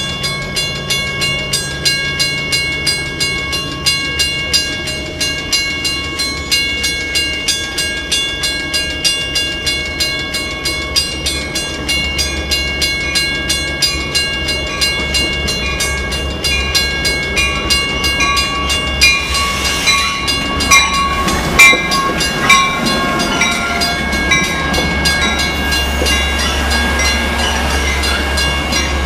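Railroad grade-crossing bell ringing steadily, about two to three strokes a second, over the low rumble of an approaching train. From about two-thirds of the way in the train noise grows louder, with a few sharp louder peaks, as a Metra train of stainless-steel bilevel coaches rolls into the station.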